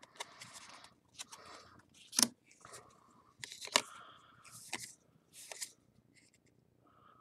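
Trading cards being slid off a stack and across one another while sorted by hand: a run of short papery swishes, with two sharp snaps about two and four seconds in.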